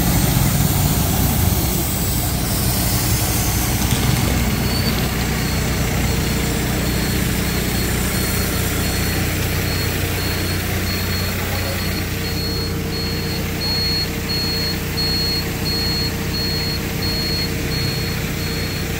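Diesel engine of an ACE mobile crane running steadily. From about five seconds in, a high electronic warning beeper sounds in evenly spaced short beeps.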